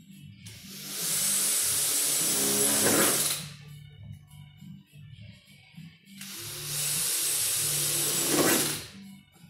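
Electric drill boring holes through a vehicle's sheet-metal fender at centre-punched marks: two bursts of about three seconds each, each ending in a brief lower grind before the drill stops. Background music plays underneath.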